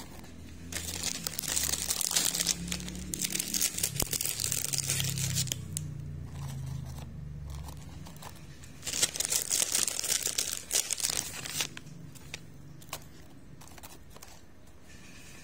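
Crisp wafer biscuits being handled in a plastic tub, rubbing against each other and the tub with a dry crackling rustle. It comes in two spells, one about a second in and one around nine seconds in, with scattered small clicks between them.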